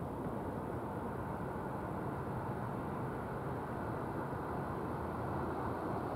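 Steady outdoor background rumble with no distinct events: an even, unchanging noise with no crossing bells and no passing train.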